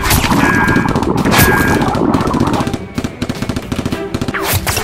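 Rapid automatic gunfire, many shots a second, thinning out around the middle and picking up again near the end.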